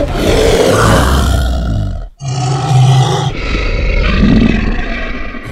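Low, growling monster roar for the evil scarecrow, given twice: one lasting about two seconds, a brief break, then a second, longer roar.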